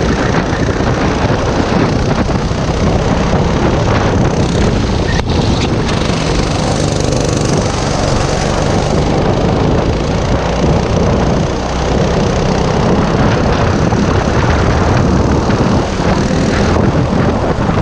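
Racing go-kart's small single-cylinder engine running hard at race pace, heard from the driver's seat, with wind rushing over the onboard microphone.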